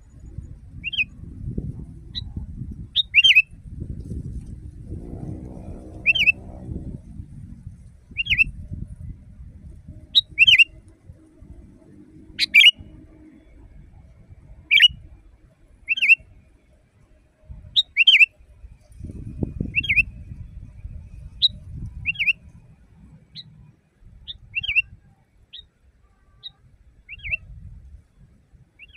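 Sooty-headed bulbul giving short, loud, sharp calls, roughly one every second or two. A low rumble runs underneath.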